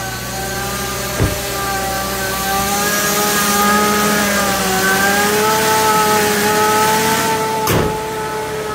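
Supercharged Subaru FB25 flat-four engine running just after startup, the Eaton M65 supercharger's whine heard as a set of steady tones that waver slightly in pitch, more muted with the new intake baffle fitted. Two sharp knocks, about a second in and near the end.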